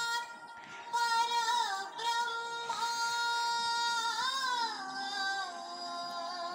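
A song playing: a woman's voice sings long held notes that bend and waver in pitch, with music behind it. The sound dips briefly just after the start, then the singing resumes.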